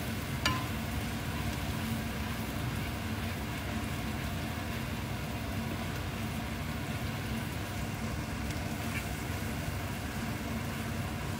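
Steady hiss of sambal frying in a pan, with a low steady hum underneath and a short click about half a second in.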